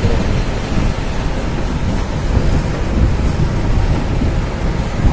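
Steady low rumbling noise with no speech.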